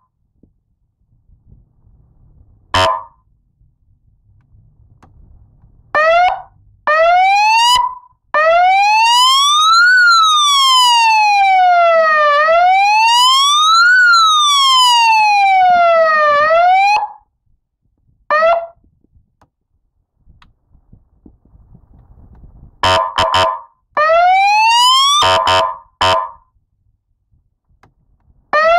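150-watt FORCE electronic police siren run through its tones. It gives short buzzing horn blasts and quick rising chirps, then a long wail that rises and falls twice over about eight seconds, then more horn blasts and chirps near the end, with short silences between.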